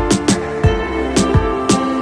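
Outro music with a steady beat: sharp beat hits over held chords.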